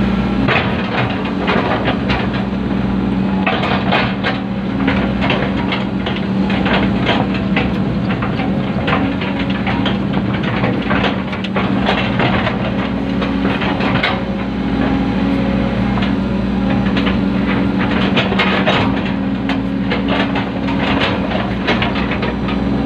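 Excavator's diesel engine running steadily under work, with frequent irregular clanks and rattles from the machine and its hydraulics as it digs and places the drain.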